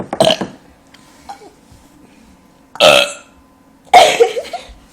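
Deliberate burps: three loud burping sounds, the loudest two about three and four seconds in.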